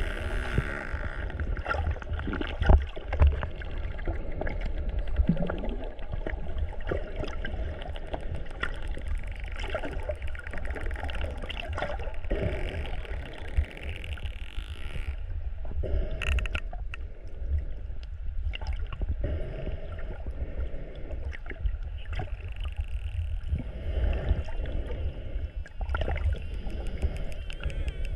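Dolphins underwater, a scatter of clicks and a few gliding whistles, over a steady low rumble of water moving past the camera.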